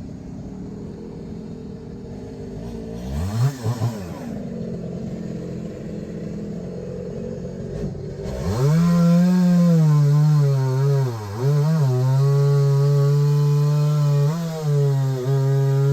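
A two-stroke chainsaw idles with a brief rev about three seconds in. About eight seconds in it is opened to full throttle and runs steadily, its pitch dipping several times as the chain bogs under load in the wood.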